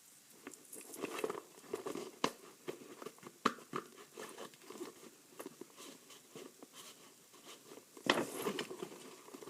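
Paper and packaging being handled: rustling and crinkling broken by small sharp clicks, with a louder rustle near the end.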